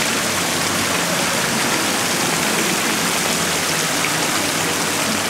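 Fountain water splashing into its basin, a steady rushing hiss.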